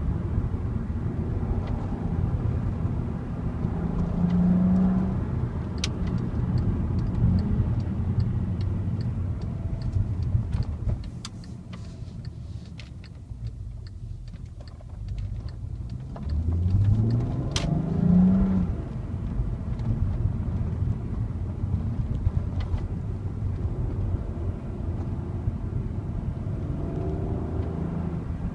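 Volkswagen Passat R36's 3.6-litre VR6 engine through its stock exhaust while driving. It quietens for a few seconds midway, then its pitch climbs under acceleration and drops back. A light, regular ticking sounds for several seconds in the first half.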